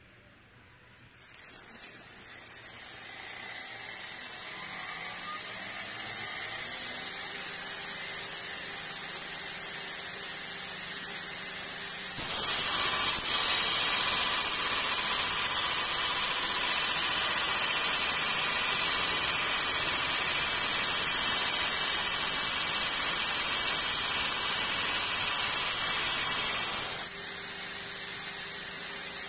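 Belt grinder with a 40-grit Deerfos ceramic belt starting up and running up to speed over the first few seconds, then running free. About twelve seconds in, a 316L stainless steel bar is pressed onto the belt and a loud, steady grinding hiss runs for about fifteen seconds, then stops suddenly and the belt runs free again.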